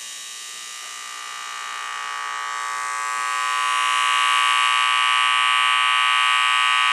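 Piezo horn super tweeter wired directly to 120-volt household AC, giving a loud, steady buzz with many overtones. It grows louder over the first four seconds or so, then holds.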